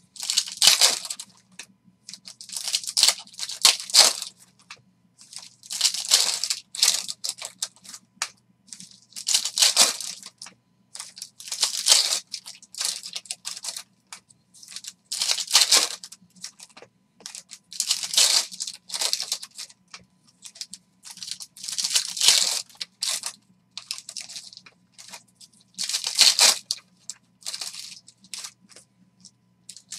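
Foil wrappers of Panini Prizm retail basketball card packs being torn open and crinkled by hand. They come as repeated bursts of rustling every second or two, with short pauses between.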